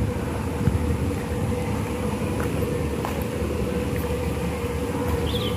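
Steady low rumble with a constant mid-pitched machine hum, unchanging throughout.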